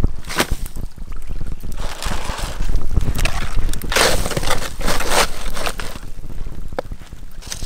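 Wind rumbling on the microphone, with several bursts of dry rustling as palm-leaf-wrapped bundles are handled and pressed down into a charcoal pit.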